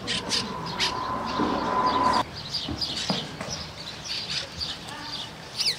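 Small birds chirping in quick, repeated high notes. For the first two seconds a steady whine with a hiss runs over them, then cuts off suddenly.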